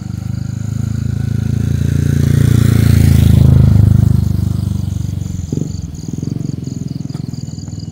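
A motor vehicle's engine passing close by, growing louder to a peak about halfway through and then fading away. From about the middle, insects chirp in a fast, regular high pulse.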